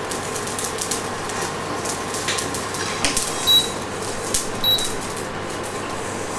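Mustard seeds popping and crackling as they dry-roast in a hot stainless steel pan: a constant scatter of small clicks. A few louder clicks ring briefly on the steel.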